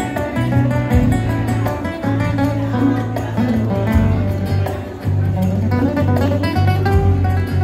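Solo Spanish guitar, a nylon-string acoustic played with the fingers in a flamenco style: a continuous run of plucked melody notes over repeated low bass notes.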